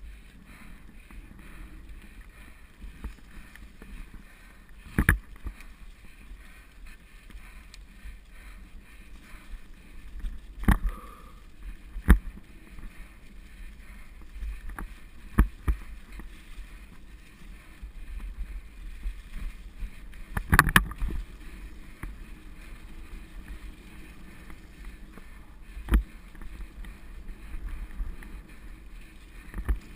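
Mountain bike rolling over a leaf-covered dirt singletrack: a steady rumble of tyres on ground and leaves, broken by about seven sharp knocks and rattles as the bike hits bumps.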